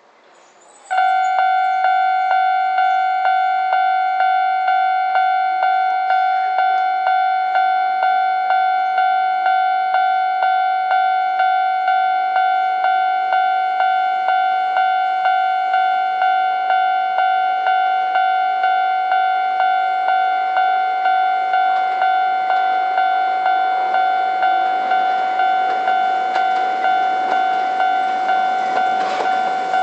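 Japanese railway level crossing's electronic warning bell ringing in an even two-tone clang, about two strikes a second, starting about a second in. Near the end an approaching train's running noise grows underneath it.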